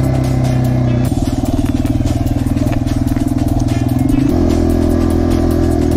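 Yamaha TW200's single-cylinder four-stroke engine running under way. About a second in, its note turns to a slower, pulsing beat, and a little after four seconds it changes back to a steady note.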